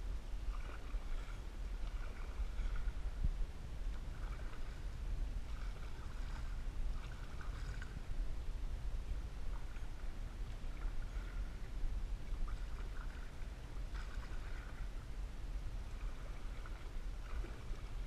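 Canoe paddle strokes dipping and pulling through lake water, a soft splash and trickle every one and a half to two seconds, over a steady low rumble.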